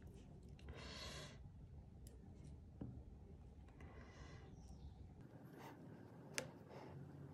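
Faint hand-sewing sounds: a long metal needle and 1.5 mm warp cord drawn through thick twisted cotton rope, giving two brief scratchy rasps, about a second in and about four seconds in, with a few light ticks and one sharp click near the end.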